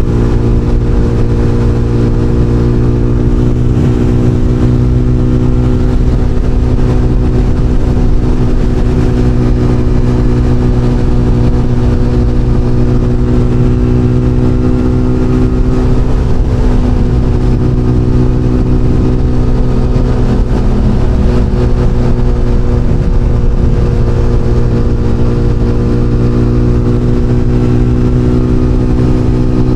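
SBM 250 S motorcycle engine running steadily at constant revs, one loud, even note that drifts only slightly in pitch.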